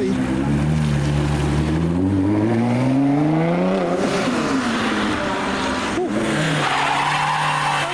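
Modified cars driving off on a wet road: a deep, low engine rumble from the Chevrolet pickup, then an engine revving up for about three seconds and dropping back as another car accelerates away. After a sudden break about six seconds in, another engine runs steadily under a hiss.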